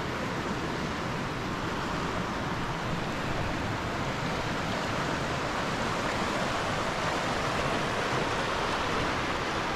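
Fast-flowing river rushing over rocks: a steady, unbroken noise of moving water.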